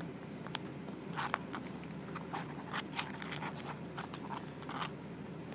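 Rabbit eating pellets from a bowl close to the microphone: a run of short, irregular crunches and clicks for about four seconds.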